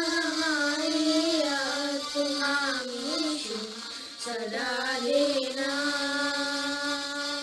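A high female voice singing slowly, one melodic line of long drawn-out notes; the last note is held steadily through the second half.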